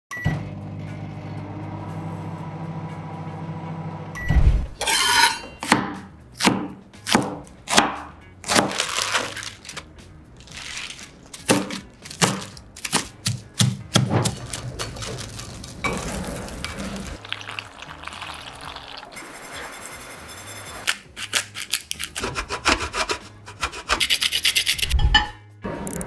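A microwave oven runs with a steady hum. Then a kitchen knife chops spinach on a wooden cutting board in a long run of sharp strikes, several a second at times.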